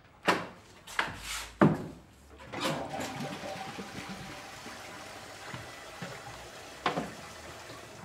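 Several quick knocks in the first couple of seconds, then a steady rush of running water that slowly fades, with one more knock near seven seconds.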